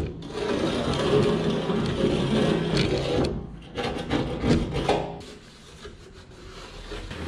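Scraping and rubbing in the channel of an aluminium tray frame as dirt is cleaned out of it, in repeated strokes that die down about five seconds in.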